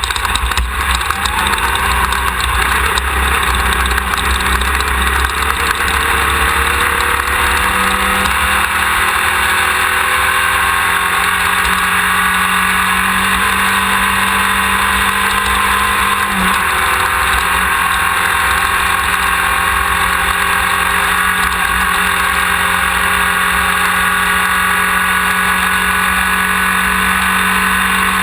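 Engine of a Class 1600 off-road race buggy, an air-cooled VW 1600 flat-four, running hard under load. Its pitch climbs slowly over several seconds, dips briefly about halfway through, then holds steady and high over a constant rumble of the car running over the terrain.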